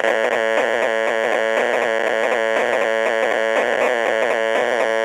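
Cheap Budweiser-branded wired speaker with a headphone plug not properly seated in its input jack, putting out a loud, continuous electronic buzz of chiptune-like warbling tones over one steady pitch. It starts abruptly and is typical of the little amplifier running away on its own, picking up a bad connection rather than playing a signal.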